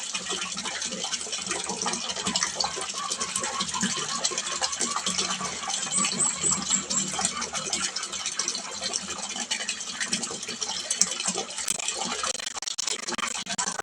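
Water splashing steadily into a small fish pond: a continuous, crackling splash.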